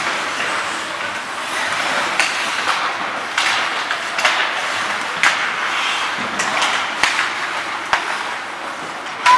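Ice hockey play on the rink: skate blades scraping the ice in a steady hiss, with scattered sharp clacks of sticks and puck about once a second.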